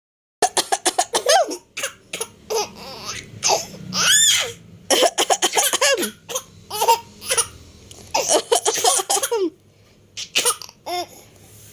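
A person coughing repeatedly in short bursts, and a six-month-old baby laughing hard in reply with squealing, rising-and-falling giggles.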